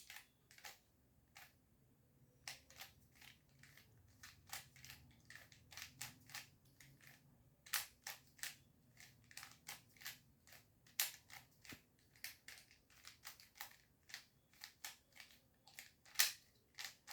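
Plastic 3x3 Rubik's cube being turned by hand during a solve: faint, irregular clicks as the layers snap into place, several a second, with a louder click just after sixteen seconds.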